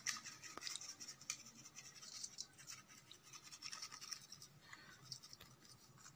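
Faint scratching and rubbing as a hand turns raw fish pieces in dry fish masala powder against a steel bowl, with a few light ticks.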